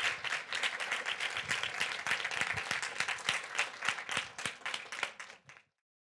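Audience applauding: many people clapping at once in a dense, steady patter that cuts off suddenly near the end.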